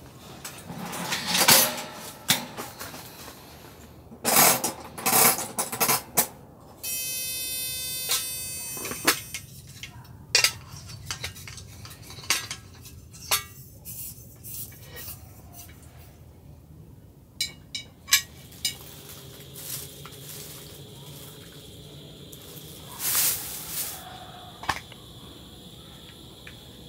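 Cookware and utensils being handled on a wooden camp table: a series of clinks, knocks and clatters as things are picked up and set down. About seven seconds in, a steady buzzing tone lasts for about two seconds, and a faint steady high tone sets in about two-thirds of the way through.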